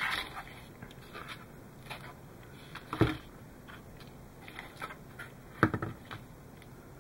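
Hands handling a plastic model hull and its bundle of wires: small scattered clicks and rustles, with two sharper knocks, one about three seconds in and one near six seconds.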